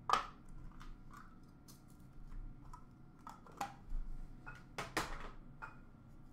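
Hands sorting trading card packs in a plastic bin: scattered light clicks and taps of packs knocking against each other and the bin, the loudest right at the start and about five seconds in.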